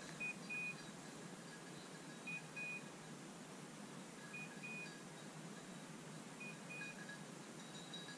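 Electronic beeper collar on a hunting dog sounding a short beep then a longer one, the pair repeating about every two seconds, four times, over a faint steady hiss.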